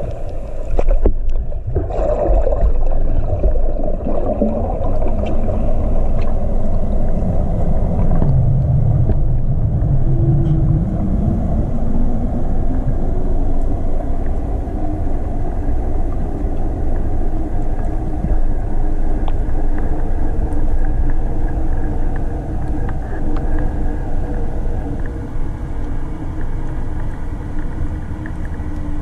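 Underwater noise picked up through a camera's waterproof housing: a steady low rumble, with a tone that falls and then rises in pitch between about eight and eleven seconds in.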